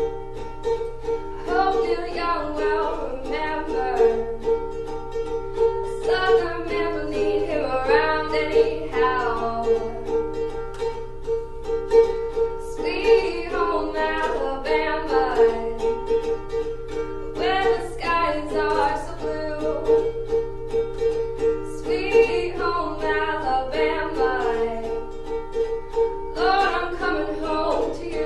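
Ukulele strummed in a steady repeating pattern, with a woman singing phrases over it that come back every few seconds.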